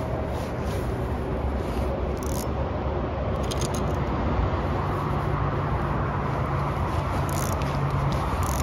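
Steady rumble of road traffic crossing a bridge, with a deeper engine drone building about halfway through. A few light clicks and scrapes sound close by.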